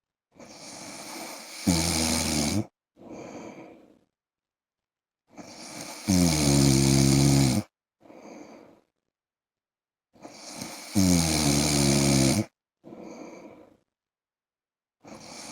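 A man snoring, three full breaths about four and a half seconds apart. Each in-breath starts breathy and turns into a loud pitched snore about a second long that drops slightly in pitch, followed by a short, softer out-breath, with dead silence between breaths.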